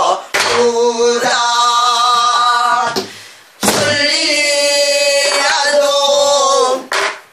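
A woman singing pansori in long, held, wavering notes with a dip between phrases. She beats time herself on a pansori barrel drum (sori-buk) with a wooden stick: a stroke at the start, one about halfway through, and one near the end.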